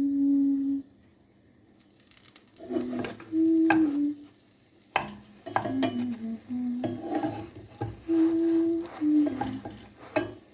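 A hummed melody as background music, stopping briefly after the first second and resuming about two and a half seconds in, with short clicks and taps of kitchen utensils on cookware through the second half.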